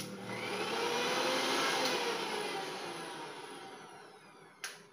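Usha 750 W mixer grinder motor running with no jar fitted: a whirring whine that climbs in pitch as it spins up, then falls away as the motor coasts down. A single sharp click comes near the end.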